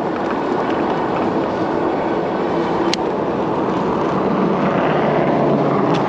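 Steady rush of street traffic and wind on the microphone of a moving e-bike. A vehicle going by makes it swell a little in the second half.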